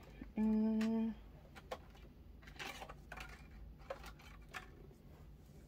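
A short hummed vocal sound held on one pitch near the start, then faint scattered clicks and light knocks of small objects being handled while rummaging for a pen.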